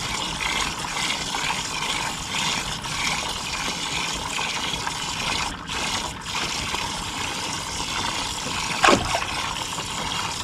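Steady trickling and splashing of water, with a single brief knock about nine seconds in.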